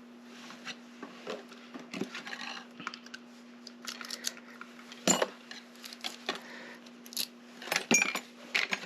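Small metal clicks and clinks as top pins are loaded into a lock cylinder's pin chambers during rekeying, with a sharper click about five seconds in and a cluster of clicks near the end, over a steady low hum.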